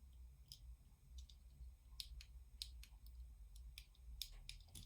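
Near silence: room tone with a low hum and about a dozen faint, sharp clicks scattered irregularly throughout.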